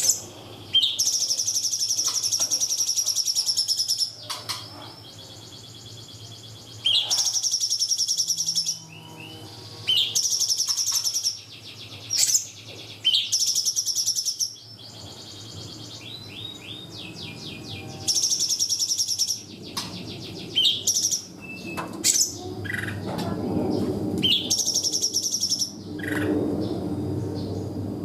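Cungkok bird song in the 'tembakan' style: about eight loud, high, rapid rattling bursts, each up to about three seconds long, separated by pauses of one to four seconds.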